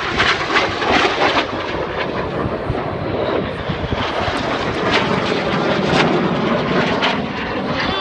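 Four BAE Hawk T1 jet trainers making a low, fast pass, a loud continuous jet roar from their turbofan engines.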